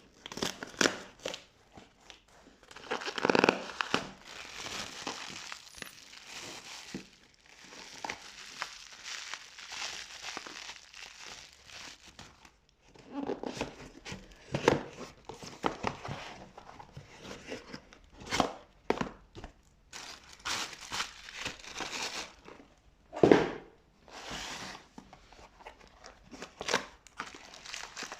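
Packaging being unwrapped by hand, crinkling and rustling in irregular bursts with short pauses, with sharper tearing sounds here and there. The loudest bursts come a few seconds in and again near the end.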